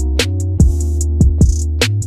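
Background music with a steady beat: drums and hi-hats over bass and guitar.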